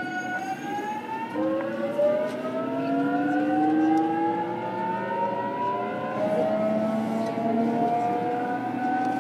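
JR Kyushu 813 series electric train's VVVF inverter and traction motors whining as it pulls away, heard from on board the motor car. The whine rises in pitch, switches to a new set of climbing tones about a second and a half in, and keeps rising as the train gathers speed.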